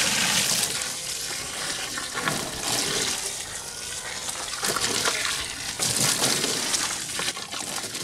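Garden hose with a spray nozzle spraying water into plastic tote planters of soil and plants: a steady hiss and splash that swells and eases a little as the spray moves.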